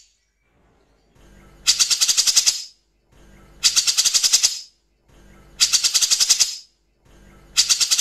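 Grey-cheeked bulbul (cucak jenggot) giving its harsh, rattling 'tembak' call in four bursts about two seconds apart. Each burst is a soft lead-in followed by about a second of fast, high chattering notes, roughly ten a second.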